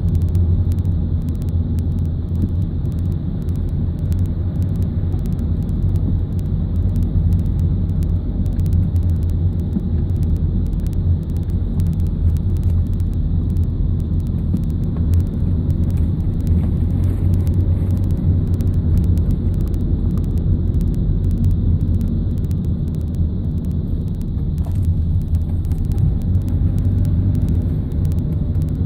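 Van engine and tyre rumble heard from inside the cab while driving slowly, a steady low drone.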